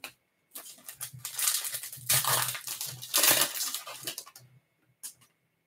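Plastic wrapper of a 2021 Bowman Mega Box baseball card pack crinkling as it is torn open by hand and the stack of cards pulled out. The rustling comes in several bursts, loudest about two and three seconds in, and ends with a few faint clicks.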